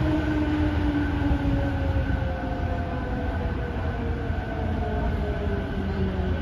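Tokyo Metro 05 series subway car heard from inside: a low running rumble under a motor whine whose tones slide slowly down in pitch as the train brakes for its next station.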